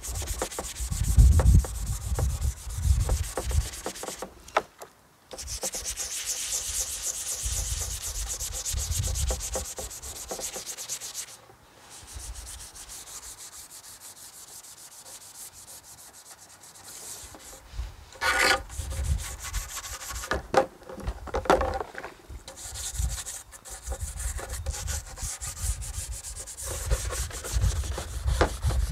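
Nylon brush scrubbing a plastic car trim panel and its rubber seal with soapy water, in repeated back-and-forth strokes with a few short pauses.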